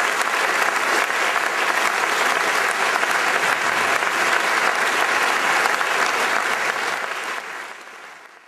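Audience applauding, a dense, steady patter of many hands clapping that fades away near the end.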